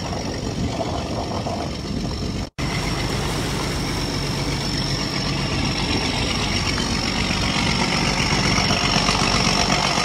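Wooden fishing boat's engine running steadily with a thin high whine over the hum. The sound drops out for an instant about two and a half seconds in, then carries on.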